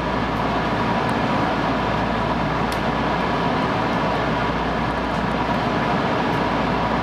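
Steady hum of a stationary electric train's onboard equipment as it waits at the platform to depart, with a few faint steady tones running through it.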